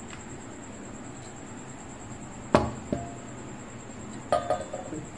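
Glass bowl knocking against a stainless-steel mixer jar as mango pulp is tipped in: one sharp knock with a brief ring a couple of seconds in, then a few lighter clinks near the end.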